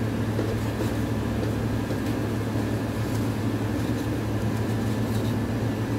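Steady low machine hum, with a few faint taps as foam takeaway boxes are handled and stacked.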